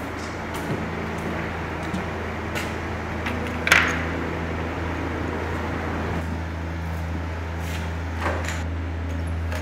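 A plastic cassette tape is picked up from a table of wooden pencils with a sharp clatter about four seconds in. A couple of lighter plastic clicks come near the end as the cassette is handled at a boombox. A steady low hum runs underneath throughout.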